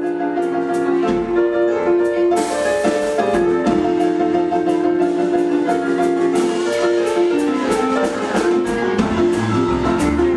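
Live boogie-woogie band music led by piano, with a steady beat of sharp percussive hits. Low bass notes join near the end.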